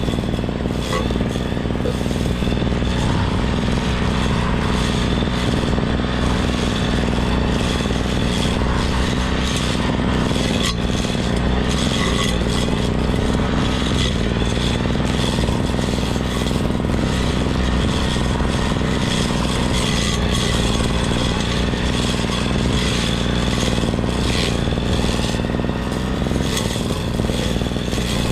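Engine of a grass-cutting machine (brush cutter) running steadily at working speed.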